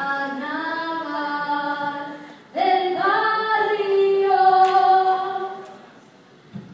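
High school choir singing sustained chords in two phrases, the second entering about two and a half seconds in and fading away near the end.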